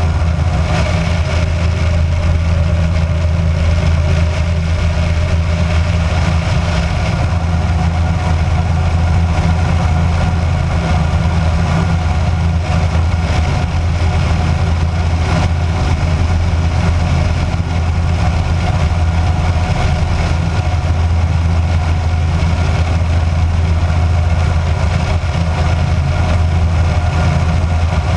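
Kitfox light aircraft's engine and propeller running steadily in flight, a strong even low hum over a hiss of rushing air.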